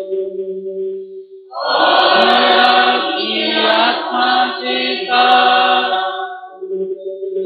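A group of voices singing a hymn in church over a held electronic keyboard chord. The singing comes in about a second and a half in and breaks off about six seconds in, leaving the sustained chord.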